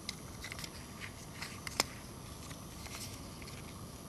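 Small plastic clicks and taps from the housing of an LG B1300 mobile phone being handled and fitted back together, with one sharper click nearly two seconds in.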